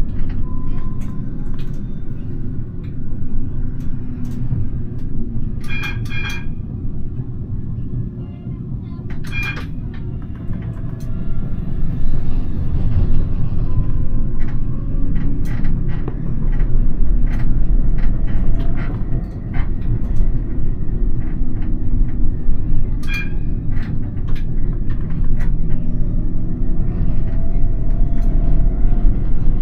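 Siemens Avenio tram running on street track, heard from the driver's cab: a steady low rumble of wheels and running gear, with scattered sharp clicks from the rails and a few short ringing pings. The rumble grows louder from about twelve seconds in as the tram picks up speed.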